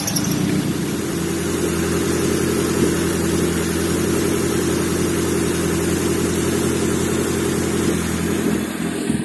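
Nissan SR20 2.0-litre inline-four petrol engine running at a steady idle on a test stand, powered through its original wiring.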